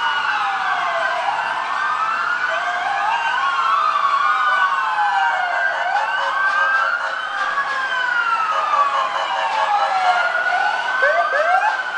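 Several emergency-vehicle sirens wailing at once, their slowly rising and falling tones overlapping. Near the end, a few quick, short rising whoops cut in.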